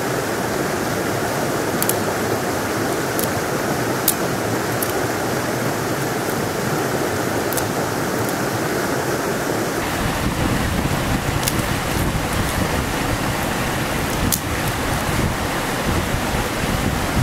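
Steady rush of a river flowing over rocks, deepening about ten seconds in. A few short, sharp clicks from dry sticks and stones being handled.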